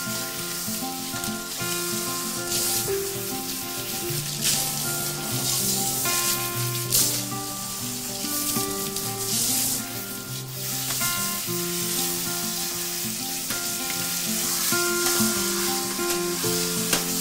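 Water spraying from a handheld shower head as shampoo is rinsed out of a dog's wet coat in a grooming tub. It makes a steady hiss that swells and eases several times as the spray moves over the dog. Soft background music plays underneath.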